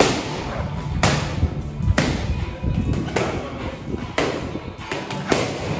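Background music with a steady heavy beat, about one hard hit a second.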